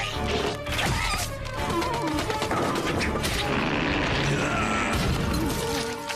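Cartoon fight sound effects over action music: a quick run of punches and whacks in the first second and a half, then a dense stretch of crashing hits.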